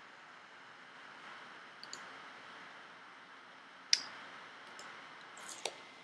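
Computer mouse clicking a few times over a faint steady hiss: a light pair of clicks about two seconds in, a sharper single click about four seconds in, and a few fainter clicks near the end.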